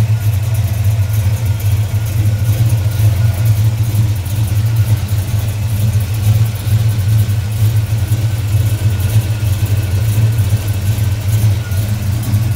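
355 cubic-inch small-block Chevrolet V8 with a hydraulic roller cam, headers and dual exhaust, idling steadily.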